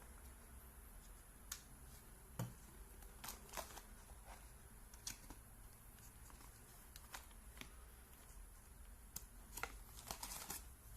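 Faint, scattered clicks and light rustling of things being handled over a quiet room, with a brief flurry of them near the end.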